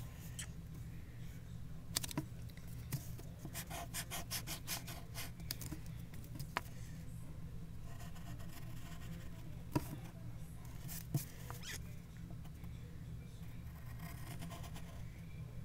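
Wooden pencil drawing on paper: scattered sharp ticks and a quick run of short scratchy strokes a few seconds in, over a steady low hum.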